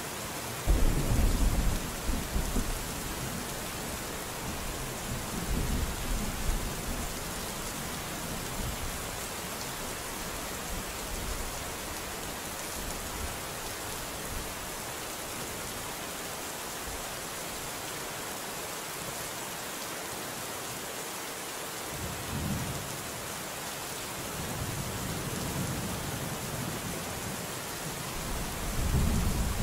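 Steady rain falling, with thunder rumbling low under it. The loudest roll comes about a second in; weaker rumbles follow around six seconds and again past twenty seconds, and another strong roll near the end.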